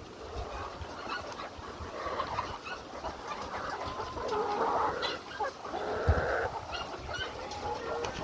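A flock of chickens clucking and calling, many birds overlapping in a steady chorus. A brief low thump comes about six seconds in.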